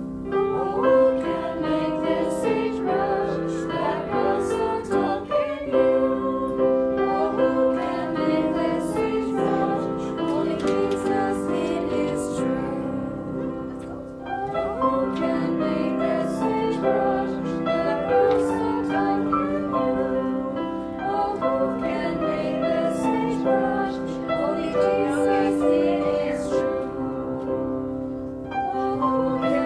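A children's song sung by female voices to piano accompaniment, with a brief lull about halfway through.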